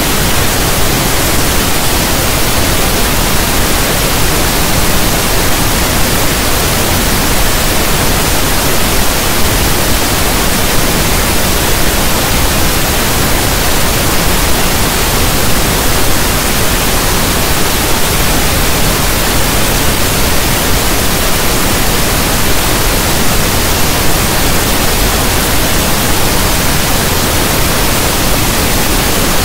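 Steady, loud pink noise: an even, unchanging hiss that sounds like static from a radio not tuned to a station.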